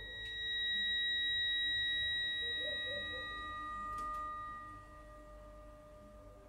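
Sparse passage of music made of a few pure, held high tones: one sounds from the start and fades out about five seconds in, and a second, lower one comes in about two and a half seconds in, over faint wavering lower notes.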